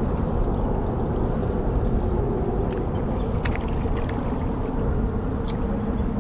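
Wind rumbling on the microphone and water sloshing against the hull of a small skiff, with a few light clicks or knocks about three and five seconds in.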